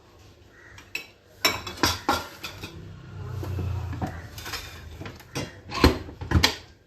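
Serving spoons and cooking vessels clinking and knocking as food is dished up, with a series of sharp clinks and the loudest pair near the end.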